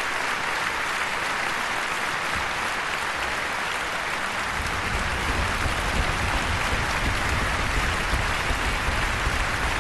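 A concert-hall audience applauding steadily after an orchestral performance, many hands clapping at once. A low rumble joins about halfway through.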